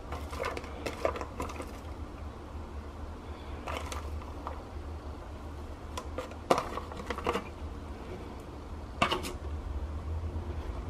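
Light clatters and crinkles of a disposable aluminium foil tray being handled while shredded lettuce is spread and pressed onto a sandwich, coming in several short clusters over a steady low hum.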